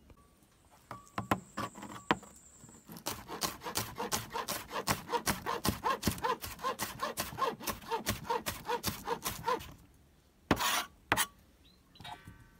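Cleaver chopping scallions on a plastic cutting board. A few separate knocks come first, then a fast, even run of chops, about four or five a second, for some six seconds. Near the end there is a short scraping sound.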